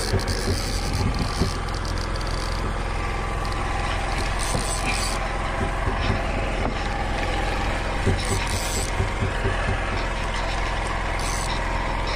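Engine on a fishing boat running with a steady low hum, with small clicks and scrapes from a spinning reel being wound as a fish is brought in.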